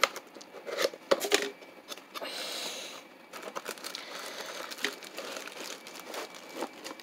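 A cardboard box being opened by hand: a few sharp snaps of the lid tab and flaps in the first second and a half, a scraping slide of cardboard, then the plastic bag wrapping the item inside crinkling irregularly.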